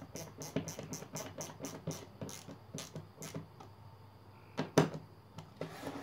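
Screwdriver clicking in a steady series of about four or five clicks a second as it is worked by hand to drive screws into a plywood base disc. Two louder sharp knocks come about three quarters through, then a brief scraping rustle.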